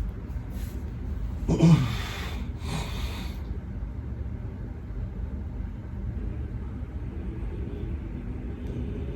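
A man snoring in his sleep: a loud snort that rises in pitch about one and a half seconds in, followed by a breath out, over a steady low rumble.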